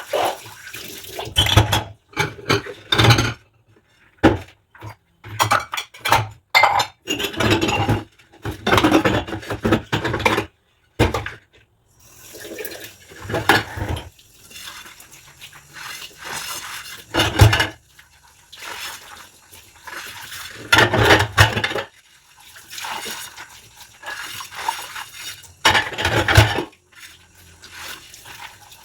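Dishes being washed by hand in a sink with rubber gloves on: water splashing and running, with dishes and cutlery knocking and clinking in irregular bursts and short pauses.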